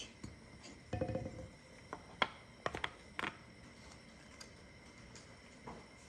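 Light clicks and taps of packaging being handled by hand, with a few sharp clicks between about two and three and a half seconds in.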